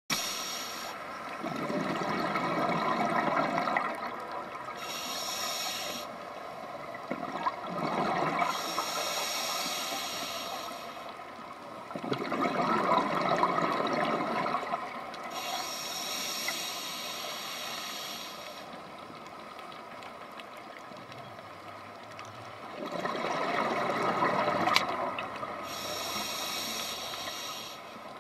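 Scuba diver breathing underwater through a regulator: slow breathing cycles, each an airy inhale hiss followed by a louder burst of exhaled bubbles, four exhalations in all, with a faint steady hum underneath.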